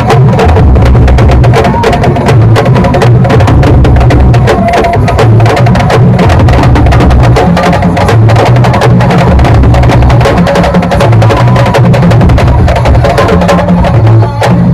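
Loud, percussion-heavy music: dense rapid drum strokes over a strong, pulsing low beat.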